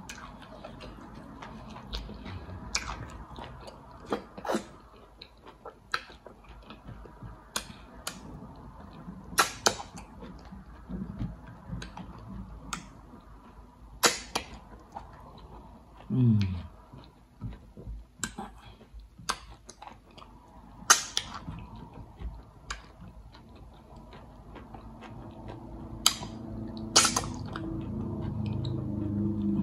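Close-up mouth sounds of eating okra and egusi soup with fufu by hand: wet lip smacks, sucking from the fingers and chewing, heard as sharp clicks every second or so. A short falling hum comes about halfway, and a steady low hum rises near the end.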